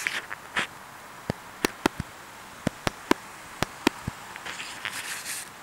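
A string of about ten sharp clicks and taps, a few of them with a short ring, spread irregularly over a few seconds. There are brief bursts of hiss at the start and again near the end.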